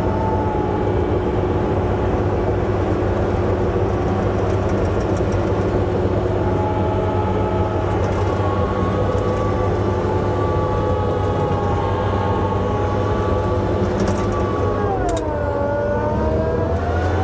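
A bulldozer's diesel engine running steadily. About 15 seconds in, its pitch dips and then climbs back up.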